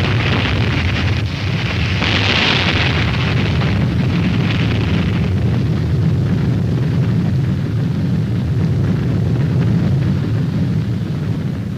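The long roar and rumble of a nuclear explosion, hissier for the first few seconds, then a steady deep rumble that eases slightly near the end.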